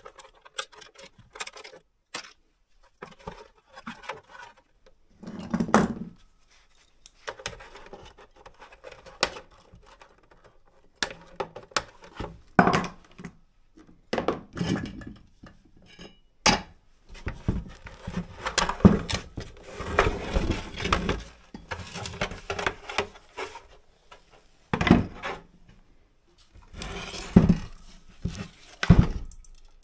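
Clicks, rattles and knocks of a water pump being taken apart by hand with a screwdriver: the plastic housing, small metal parts and the aluminium electric motor clatter against a wooden workbench, with a few louder thumps, several of them near the end.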